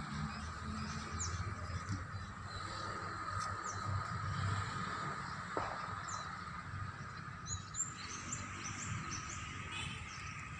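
Rural outdoor ambience: small birds chirping in short calls, more of them near the end, over a steady high insect drone and a low rumble.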